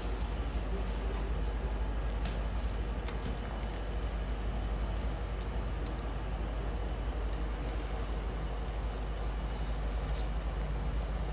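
A wire whisk churning through thick, wet chickpea and tahini paste in a stainless steel bowl, over a steady low rumble.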